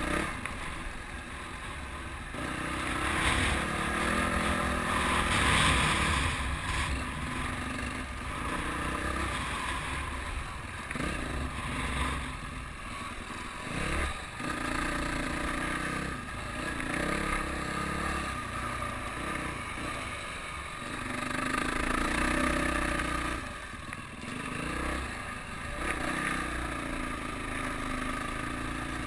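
Dirt bike engine heard from a helmet-mounted camera, revving up and easing off with the throttle over and over. Wind rush runs under it, with a few sharp knocks and rattles from the rough trail.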